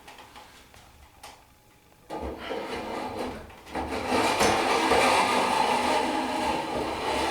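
Plastic parts rubbing and scraping as the toothed segments of a vending tower's mechanism are worked into place. It starts about two seconds in and gets louder from about four seconds.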